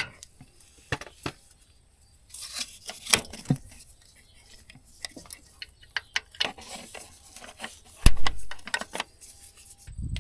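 Scattered light clicks and taps of hand work at a combine header's grease fittings, with a heavier knock about eight seconds in.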